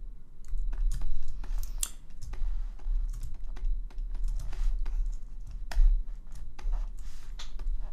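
Irregular clicks and taps of a computer keyboard and a stylus on a graphics tablet, with a low rumble underneath.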